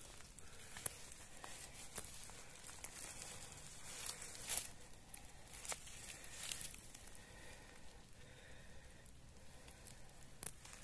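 Faint rustling and crackling of dry leaf litter and twigs being disturbed, with scattered sharp snaps, the loudest about four and a half seconds in.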